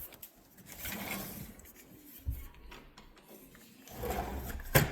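A door being opened and closed: scraping and rubbing noises, a low thud a little after two seconds in, and a sharp click near the end.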